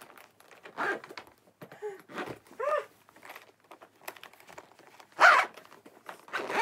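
Zipper being pulled around an overstuffed hard-shell suitcase, in short scraping tugs with a few brief strained grunts; a louder rasp a little after five seconds in.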